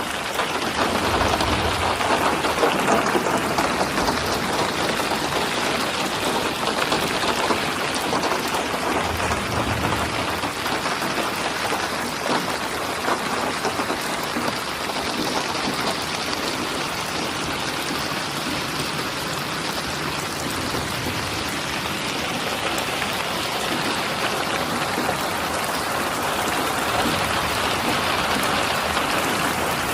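Steady rain falling in a dense, even patter of drops.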